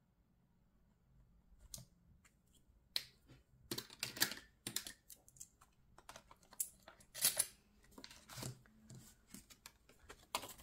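Hands handling cash and paper savings-challenge items on a table: a string of irregular clicks and rustles that starts about two seconds in.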